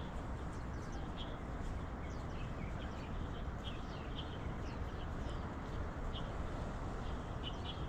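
Small birds chirping in short repeated calls over a steady outdoor background noise.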